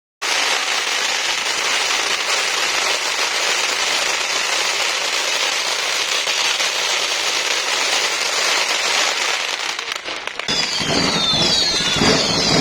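Fireworks crackling in a dense, continuous fizzing rattle for about ten seconds. About ten and a half seconds in, the sound changes to lower rumbling with short falling whistles.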